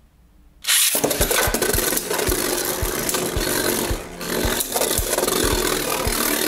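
Two Beyblade Burst spinning tops, Hazard Kerbeus and Hell Salamander, whirring and scraping across a plastic stadium floor and clashing, with a low knock about four times a second. The sound starts abruptly about half a second in.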